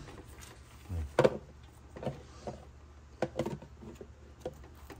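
Fresh ears of white corn being husked by hand: husks and silk tearing and rustling in short, irregular crackles, the loudest about a second in.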